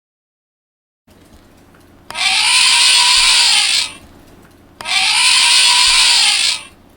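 Recorded elephant trumpet from a children's sound book's speaker, played twice in the same way. Each call lasts under two seconds and rises then falls in pitch.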